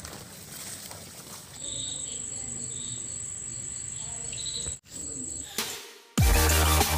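An insect trilling on one steady high note with a faint regular pulsing beneath it, which cuts off abruptly near the middle. Near the end, loud electronic intro music with deep bass and falling sweeps starts suddenly.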